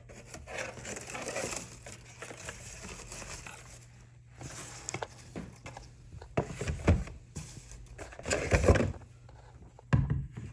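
Honeycomb kraft paper packing and a cardboard box rustling and crinkling as they are handled, with several louder bumps in the second half.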